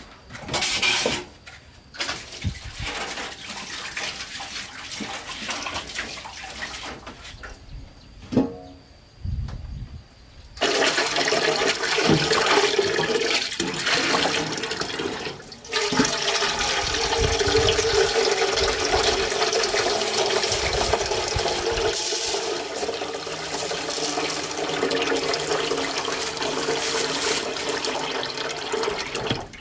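Water from a tap running into a metal pot in a stainless sink: the pot is rinsed and then filled. Water flows steadily from about a third of the way in, with one short break, after a few knocks and clatters of the pot being handled.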